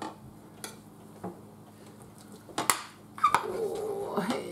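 Serving spoon clinking and scraping against a ceramic baking dish and plate as food is dished out: a few scattered clinks, the loudest about two and a half seconds in.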